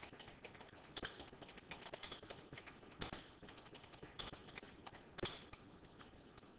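Faint, irregular tapping and clicking, with a few louder clicks about one, three, four and five seconds in.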